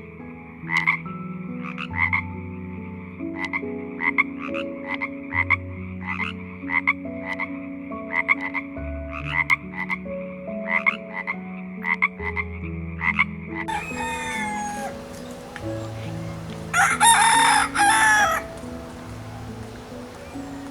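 A frog croaking in short calls repeated about twice a second. About fourteen seconds in the croaking stops and a rooster crows; the loudest crow comes near the end.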